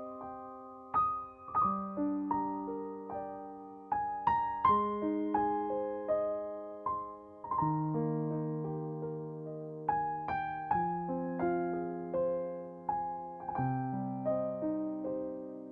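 Background music: slow, gentle solo piano, single notes and chords struck and left to fade.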